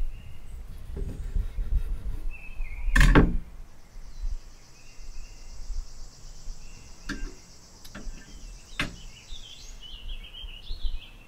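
A knife knocks once against a wooden cutting board about three seconds in. Then a steady high insect buzz runs for several seconds, with faint bird chirps and a few light clicks.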